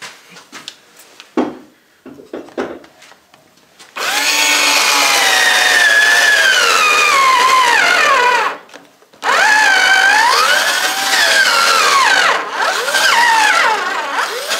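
Cordless drill boring into a cardboard tube, its motor whine sagging in pitch as it bogs down. The whine breaks off briefly after about eight seconds, then runs again, rising and falling, with a few light knocks of handling before the drilling starts. The drill's battery is nearly flat.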